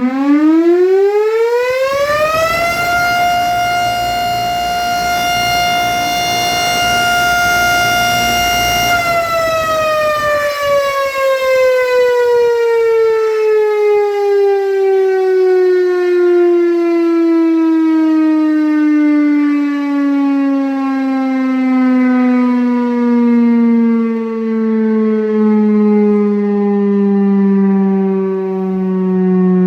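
Loud outdoor tornado-warning siren giving the curfew signal. Its tone climbs quickly over the first few seconds, holds one steady high pitch for about six seconds, then slowly falls as the siren winds down.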